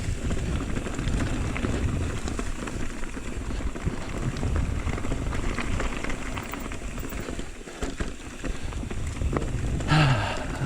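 Mountain bike rolling along a dirt and gravel trail: a steady crunching rush of tyres on the ground mixed with wind on the camera. A short voice sound comes near the end.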